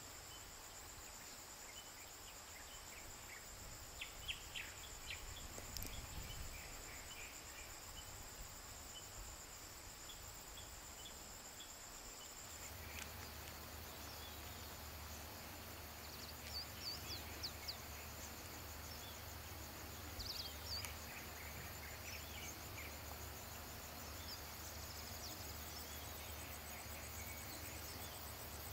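Forest ambience: a steady high-pitched insect trill with scattered short bird chirps. About halfway through the background shifts and a low hum comes in.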